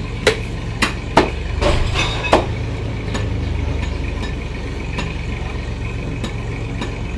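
A heavy butcher's knife chopping water buffalo meat on a wooden log block: about five sharp chops in the first two and a half seconds, then they stop. A steady low hum runs underneath.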